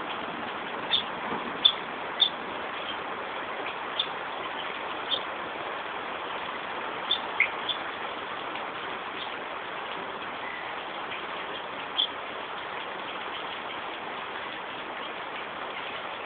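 Scattered short, high bird chirps, about eight, over a steady rushing background noise.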